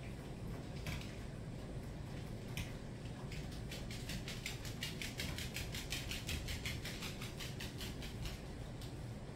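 A Stampin' Blends alcohol marker scratching over card stock in a run of rapid, even back-and-forth strokes, colouring in a stamped image, after a couple of single ticks.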